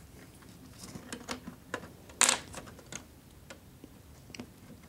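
Light clicks and ticks of model railroad track being handled and fitted, with one sharp snip of rail cutters trimming N scale rail a little over two seconds in.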